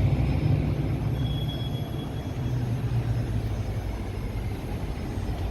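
Low rumble of passing road traffic, strongest at the start and easing off after about four seconds.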